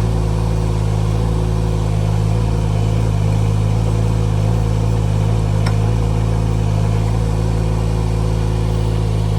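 Mini excavator's Yanmar 3TNV74F three-cylinder diesel running at a steady speed while the machine digs, with one faint tick a little past halfway.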